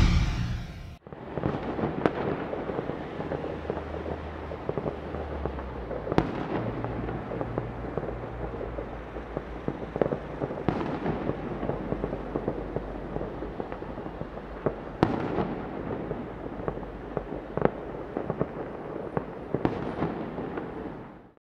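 Distant gunfire of a battle in a city: a dense, continuous crackle of many far-off rifle and machine-gun shots, with louder single shots standing out every few seconds. It cuts off suddenly near the end. Intro music dies away in the first second.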